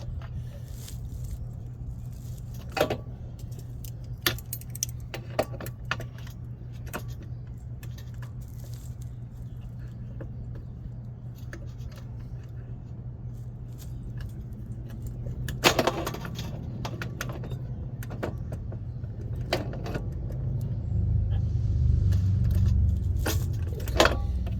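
Metal tools clinking and clicking against a fitting on a new car radiator as it is tightened: scattered sharp metallic clicks over a steady low hum. A low rumble swells near the end.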